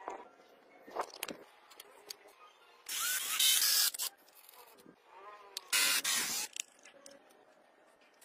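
Two bursts of hissing, like a spray, the first about a second long and the second shorter, with a few light clicks of handling small plastic parts between them.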